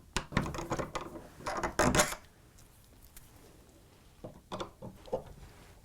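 Cross-head screwdriver turning out the screws of a door's multi-point lock handle: bursts of metal clicking and scraping in the first two seconds, then a few lighter clicks near the end.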